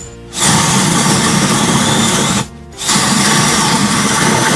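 Power drill boring into wood twice, each run about two seconds long with a short pause between, the bit fitted with a depth-stop collar that sets every hole to the same depth.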